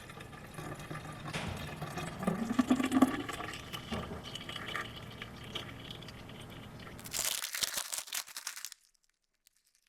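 A drink being poured into a glass, with crackling and clinks and a short rising pitch as it fills. Near the end comes a brief bright fizzing hiss that cuts off suddenly.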